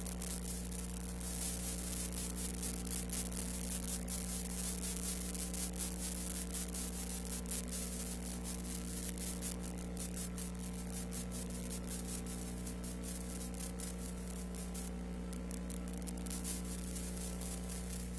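Steady electrical hum with hiss and scattered crackles: a noise floor carrying no sound from the scene itself.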